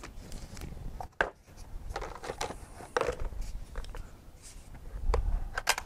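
Handling noise from a hard plastic jigsaw carrying case: a paper instruction sheet rustling, then the saw lifting out of its moulded plastic tray with scattered clicks and knocks, and a low rumble near the end.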